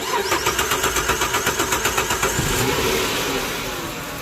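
2007 Dodge Charger engine cranking with a fast even beat for about two and a half seconds, then catching and running, settling toward idle. The starter is being driven by bridging the starter relay pin to the battery positive with a USB cable, a workaround for a broken ignition switch actuator pin.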